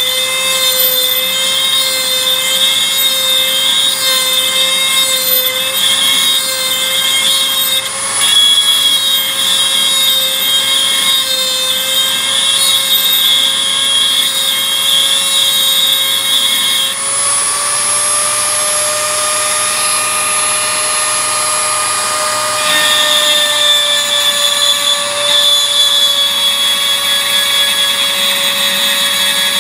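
Small handheld rotary tool spinning a grinding bit against a steel adjustable wrench: a steady high-pitched motor whine with a grinding hiss. Past the middle the motor's pitch rises and holds for several seconds, then drops back as the grinding picks up again.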